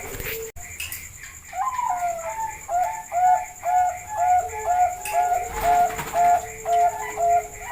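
Bangkok-strain zebra doves (perkutut) cooing: a run of short, evenly repeated coo notes, about two a second, after a brief break about half a second in.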